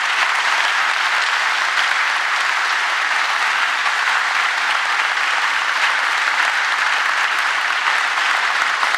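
A large audience applauding, a dense, steady clapping that holds at the same level throughout.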